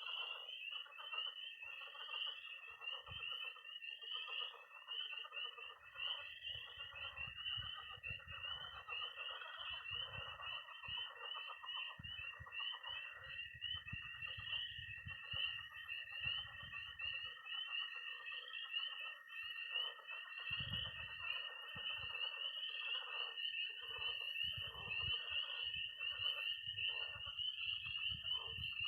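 Early-spring night chorus of frogs and toads: a dense mass of high peeping from spring peepers over the steady high trill of toads, with lower pulsing croaks from pond frogs underneath. Low rumbles come and go.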